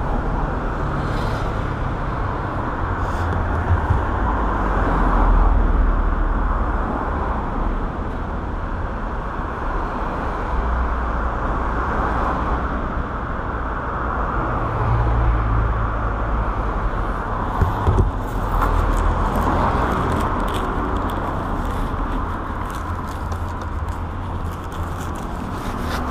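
Motorcycle and street traffic noise: a steady low rumble with a hiss that swells and fades at times, with a few sharp clicks and knocks near the end.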